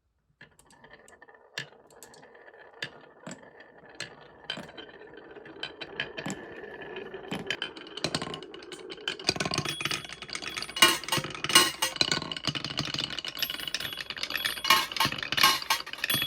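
Marbles rolling and clattering down wooden marble-run tracks: a quick run of clicks and knocks, with thin bell-like chime tones ringing over them. It starts about half a second in and grows busier and louder from about nine seconds in, as more marbles run at once.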